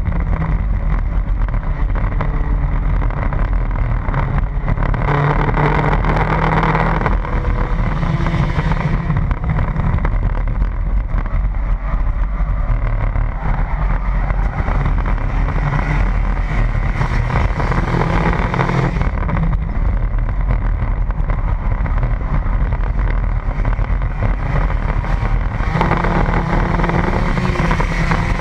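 Pontiac Sunfire stock car's engine running hard at racing speed, heard from inside the car, with a strong low rumble. Its note swells and eases with the throttle, loudest in stretches about a fifth of the way in, around the middle and near the end.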